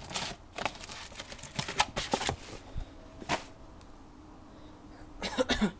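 Fireworks packaging being handled: scattered light clicks, knocks and rustles of cardboard and plastic. There is a run of them in the first couple of seconds, a single one past the middle, and a cluster near the end.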